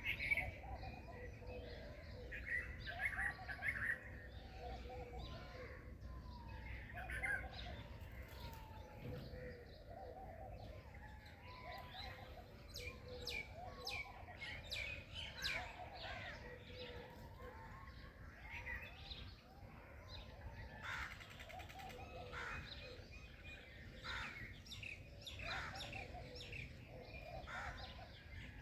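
Several birds chirping and singing at once, short calls and whistled phrases overlapping without a break, over a steady low rumble.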